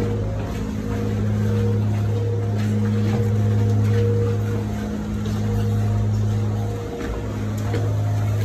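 A motor or engine running steadily with a low hum, dipping briefly twice.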